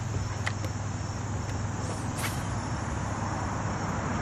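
Steady outdoor background of wind on the microphone with a low rumble and a faint steady insect hum. Two light clicks come about half a second and two seconds in.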